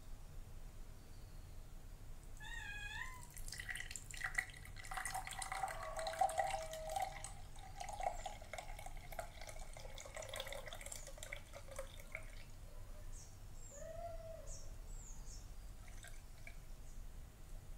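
Thick green moringa drink poured from a steel pot through a mesh sieve into a glass, trickling and splashing faintly, busiest from about four to twelve seconds in. A few short warbling calls are heard faintly near the start and again later.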